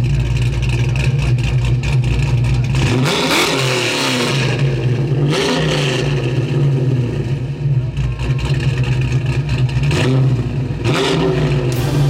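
Car engine running with a steady low rumble, its pitch rising and falling three times: about three seconds in, around five seconds in and near the end.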